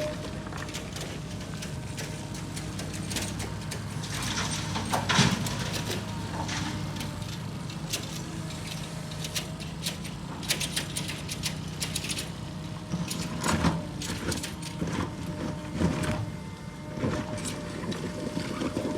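Excavator's diesel engine running steadily, with a steady whine above it and scattered clanks and knocks.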